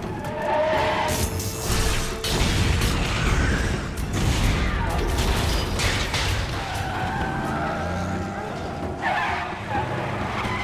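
Film action soundtrack mix: a music score over heavy truck engines, skidding tyres and crashing metal, with several sharp impacts.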